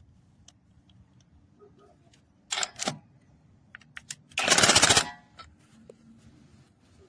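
Cordless impact wrench fired in short bursts: two brief blips about two and a half seconds in, then about half a second of rapid hammering near the middle.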